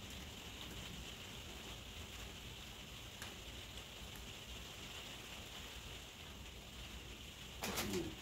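Cheese being rubbed on a metal box grater, a soft, steady scratchy rasp. Near the end there is a brief louder sound that falls in pitch.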